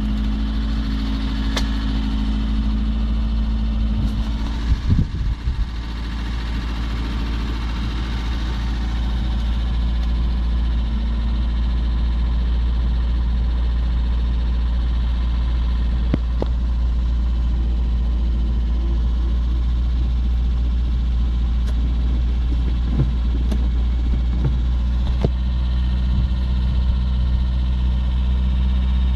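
VAZ-2104 engine idling steadily, with a short cluster of low knocks about five seconds in and a few light clicks here and there.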